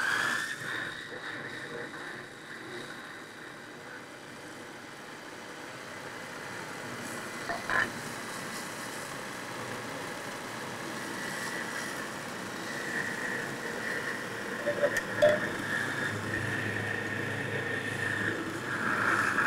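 Small electric food processor running continuously with a steady high-pitched motor whine, settling into pitch as it spins up at the start, pureeing salmon mince into a smooth paste while cream is added. A couple of light knocks about 8 and 15 seconds in.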